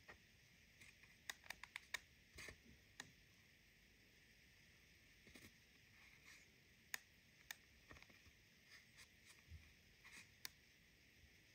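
A plastic spatula scraping and digging pressed eyeshadow out of a plastic palette pan: faint, sparse clicks and short scrapes, with a quick run of clicks about a second and a half in.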